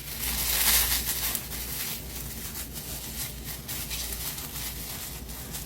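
Rustling, crinkling and small scratches as packaging is handled and opened, loudest in the first second.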